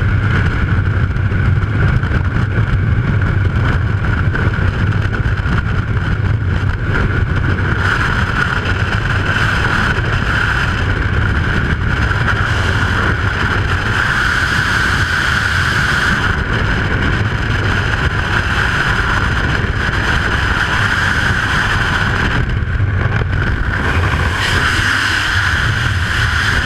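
Freefall wind rushing over a skydiving camera's microphone: a loud, steady noise with a high whistle held in it.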